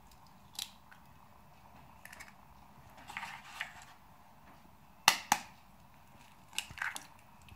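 Eggs being cracked one after another into a bowl: light shell taps and crackling, with two sharp eggshell cracks about five seconds in, the loudest sounds, followed by softer crackling as the shell is pulled apart.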